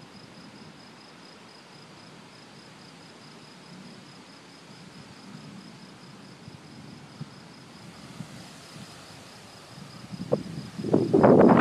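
Crickets chirping steadily, a fast, even pulsing trill over a soft hiss. Near the end a loud crackling, rumbling noise rises suddenly and drowns it out.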